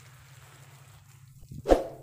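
Garden hose spraying water with a faint steady hiss, then one sudden, loud, short sound near the end.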